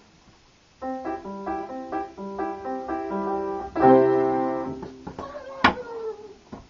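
A keyboard instrument playing a short run of single notes, ending in a loud chord that dies away. A sharp, sudden noise follows near the end.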